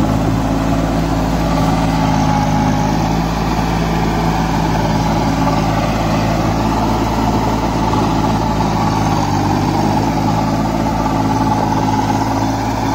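Kubota 21 hp mini tractor's diesel engine running steadily under load while it pulls a rotavator through a flooded field for puddling. Its pitch drops slightly about nine seconds in.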